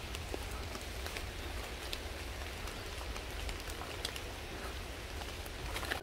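Light rain falling on the leaves of woodland trees and bushes, with many scattered drop ticks over an even hiss, and a steady low rumble underneath.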